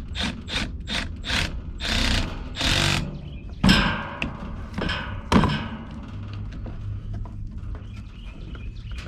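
Metal parts clinking and scraping as mounting feet are fitted to a furnace blower motor, a quick run of short rasping strokes followed by two sharp knocks about four and five and a half seconds in.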